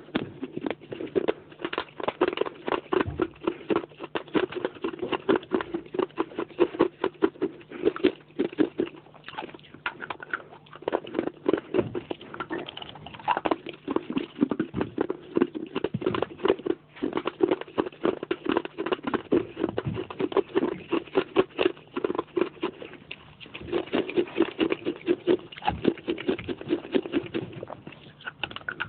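Pieces of baked clay pot being bitten and chewed close to the microphone, a dense run of crisp crunches with a few short pauses.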